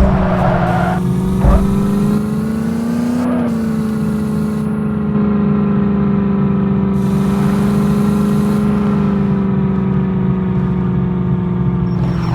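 Landi jeep engine running at a steady pitch while driving, with two low thumps in the first couple of seconds and a slight rise and fall in engine pitch about three seconds in.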